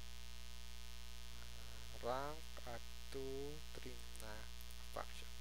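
Steady electrical mains hum picked up by the recording microphone. From about a second and a half in it is joined by a few short pitched sounds that sweep up and down in pitch, the loudest just after two seconds.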